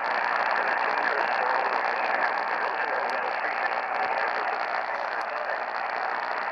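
Steady hiss of radio static from a receiver with no clear signal, with a couple of faint ticks.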